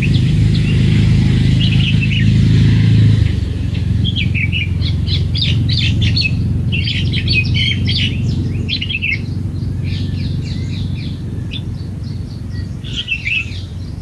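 Red-whiskered bulbul calling: quick runs of short, high chirps starting about four seconds in and going on for several seconds, with another run near the end. A steady low rumble runs underneath and is loudest in the first few seconds.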